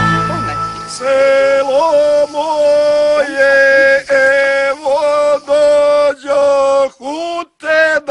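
An instrumental passage ends about a second in. Then a single voice sings a slow melody unaccompanied, in long held notes broken by short pauses between phrases.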